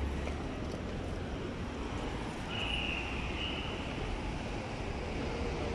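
City street ambience: a steady rumble of road traffic, with a brief high-pitched tone about two and a half seconds in.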